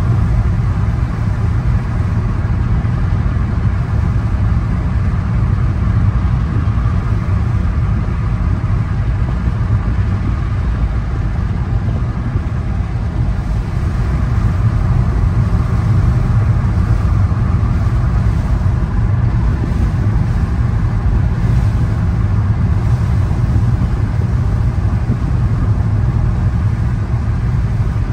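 Car cruising at a steady speed, heard from inside the cabin: a steady low rumble of engine and tyres on the road.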